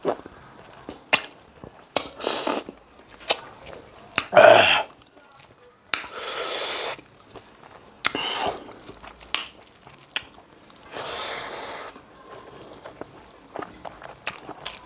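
A person eating close to the microphone: chewing and smacking clicks, several short breathy rushes of air, and a brief voiced sound about four and a half seconds in.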